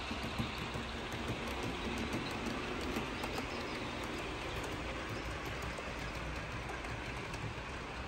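HO-scale model train, a Santa Fe Super Chief led by F7 diesels, running along the layout track with light, irregular clicking of wheels over rail joints, over a steady background hum.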